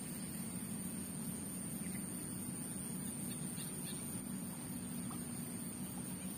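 Outdoor background: a steady low rumble and a constant thin high whine, with a few faint bird chirps.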